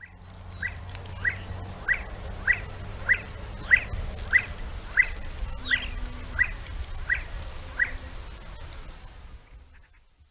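A game bird of the partridge or grouse kind calling: a run of about twelve short, rising chirps, evenly spaced about two-thirds of a second apart, over a faint background hiss.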